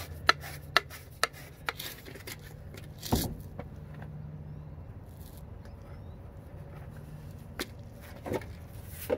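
Gloved hand scraping burrs off the cut end of a PVC pipe, in short strokes about twice a second for the first two seconds. A single thump follows about three seconds in, then a few faint clicks.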